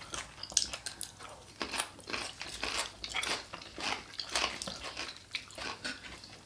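Close-miked chewing and crunching of mouthfuls of Greek salad: lettuce, peppers and feta. It comes as many short, irregular crunches.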